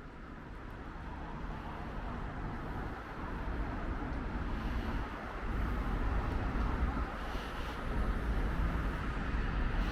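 City ambience: a steady, noisy background with a low rumble, fading in over the first few seconds.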